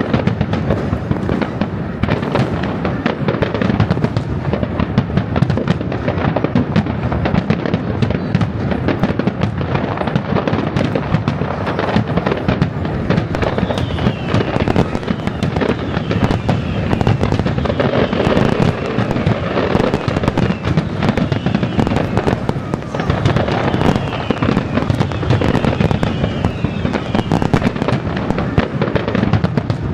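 Professional fireworks display: a continuous barrage of bangs and crackling from shells bursting overhead, with falling whistles about halfway through and again near the end.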